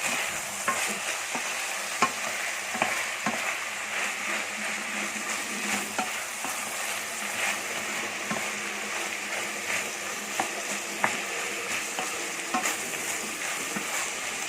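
Sliced vegetables and mushrooms sizzling in a frying pan while being stirred, with a utensil knocking against the pan now and then.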